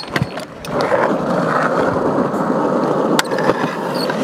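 Stunt scooter grinding along a concrete skatepark ledge: a couple of clacks at the start, then a steady scrape of metal on concrete lasting about three and a half seconds, with one more click near the end.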